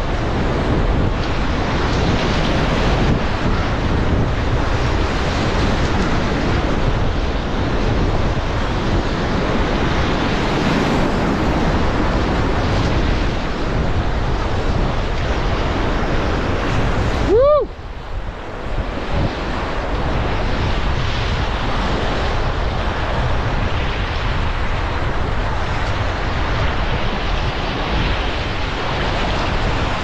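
Whitewater rapids rushing and splashing around an inflatable packraft on the Payette River at about 5200 cfs, a steady loud churning roar with wind on the microphone. A little past halfway the sound briefly goes muffled, with a short warbling tone.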